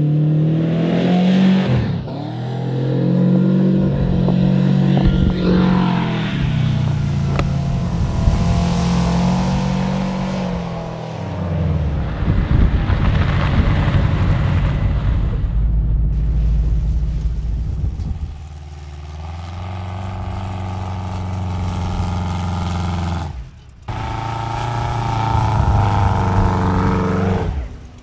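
Volkswagen Vanagon engine running on the move, its pitch rising and falling several times as it is revved and throttled back. The sound breaks off abruptly a few times.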